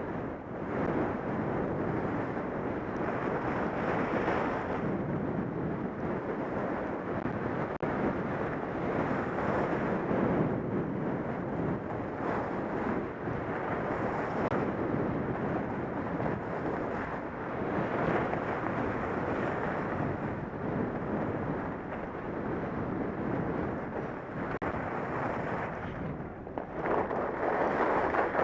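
Wind buffeting a helmet-mounted camera's microphone during a fast run down a groomed ski slope, mixed with the continuous hiss and scrape of sliding on packed snow. The rushing rises and falls with speed, and it changes near the end as the rider slows into the base area.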